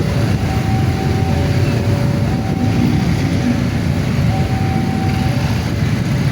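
Railway level-crossing alarm sounding a two-tone warning, alternating a higher and a lower note of about a second each, the signal that a train is coming and the barrier is closing. It plays over a loud, steady low rumble.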